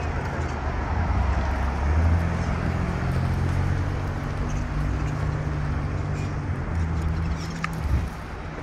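A motor vehicle's engine running close by, a steady low drone that holds for several seconds and drops away near the end, over general city street noise.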